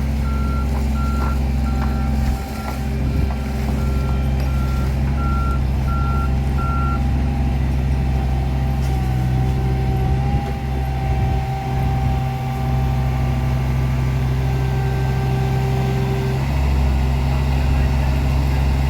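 Heavy construction machine's engine running with a steady low drone, while a reversing alarm beeps evenly, about one and a half beeps a second, stopping about seven seconds in. The engine gets louder near the end.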